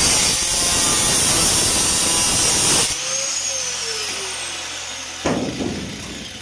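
Angle grinder cutting into the sheet-steel inner wing of a classic Mini for about three seconds. It is then switched off and winds down with a falling whine. A single knock comes about five seconds in.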